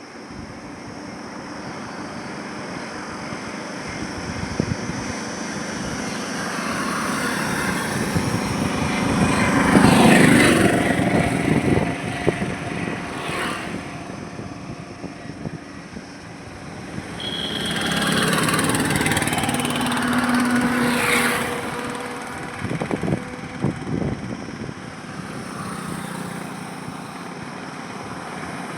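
Highway traffic going by: a steady hum of tyres and engines, with vehicles passing close about a third of the way in and again in the second half, each swelling and fading.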